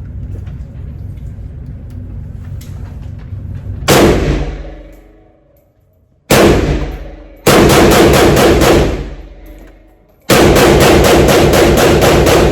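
AK-pattern 7.62x39 pistol fired: a single loud shot about four seconds in, another about two seconds later, then two rapid-fire strings of about six shots a second, each shot ringing out behind it. Before the first shot there is only a low steady rumble.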